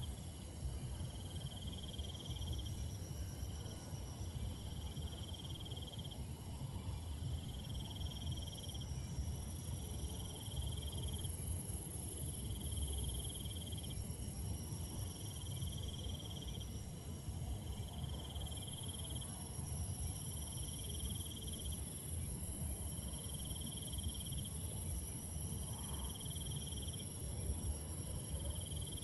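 Night insects chorusing. One repeats a pulsed trill about every two seconds, over a steady high-pitched buzz from others, with a low rumble underneath.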